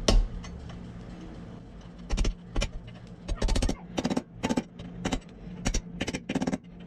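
Hammer blows driving a new bearing race into a swing arm hub, struck through the old bearing used as a driver to seat it. After a pause of about two seconds, a run of sharp strikes comes at about two to three a second.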